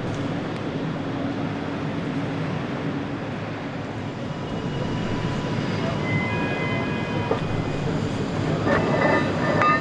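Steady low mechanical rumble of a factory assembly hall, with a few faint high squeaks in the middle and a cluster of metal clinks near the end as a heavy steel lifting fitting is handled and screwed into place.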